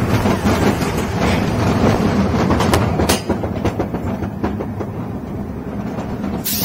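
Interpark Cyclon family roller coaster train running on its steel track: steady rumble of the wheels, with a few sharp clacks over the track. The rumble eases a little after about three seconds.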